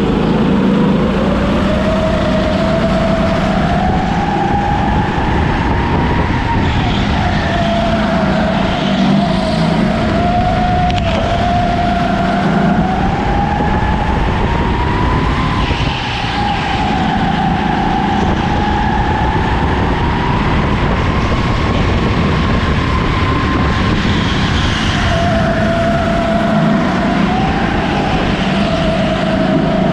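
Racing kart engine running hard, its pitch rising and falling repeatedly as the kart speeds up and slows, over a steady rush of noise.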